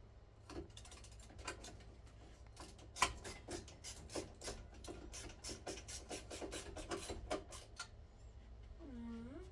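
Screwdriver clicking as screws are worked loose from a ceiling fan's blades, a run of sharp clicks that speeds up to about four a second from about three seconds in, then stops. A cat meows near the end.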